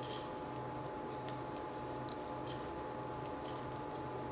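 Chana dal and urad dal sizzling softly in hot butter in a pan, a steady fry with a few faint crackles.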